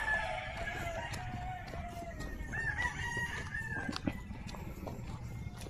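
Rooster crowing: one long crow that fades about a second and a half in, then a second, shorter crow about three seconds in.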